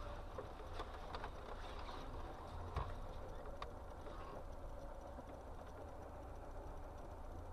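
Faint low rumble of a car's engine and cabin, picked up by a dashcam's microphone while the car creeps along in slow traffic, with a few faint clicks in the first few seconds.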